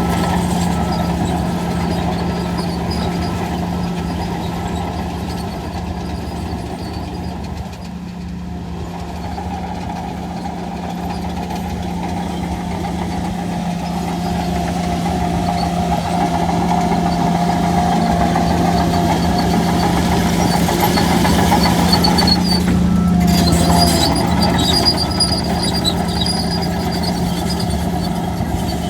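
Heavy diesel earthmoving machine's engine running under load with a steady low drone and a whine above it. The engine eases off about a quarter of the way in, then builds to its loudest shortly before the end.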